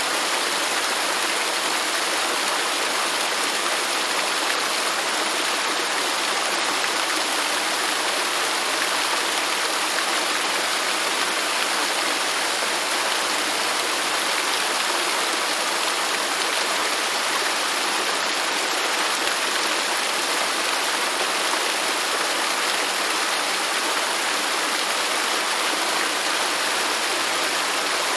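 Garden fountain: water splashing and running steadily, an even rushing with no breaks.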